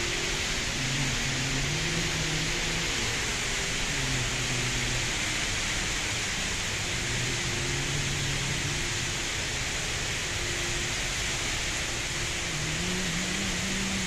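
Steady rush of falling water from a large indoor waterfall, an even hiss that does not change.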